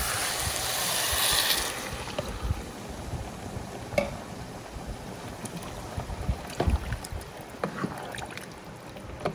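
Water pouring into a soup pot of vegetables, stopping about two seconds in, followed by a few light knocks and clicks.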